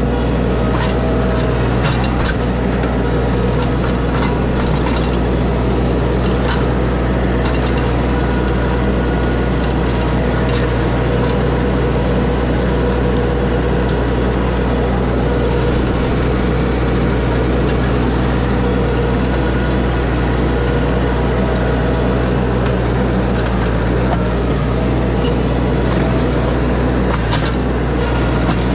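Mini excavator's diesel engine running steadily under hydraulic load, with scattered cracks and snaps of branches as the bucket crushes tree debris down.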